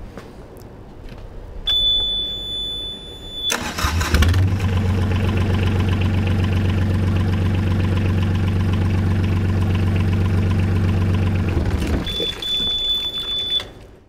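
Yanmar marine diesel started after its loose starter-solenoid wire was reconnected: the engine panel's alarm buzzer gives a steady high beep, the starter cranks briefly and the engine catches at once, confirming the loose wire was the fault. It idles steadily for about seven seconds, then is shut off and the buzzer sounds again near the end.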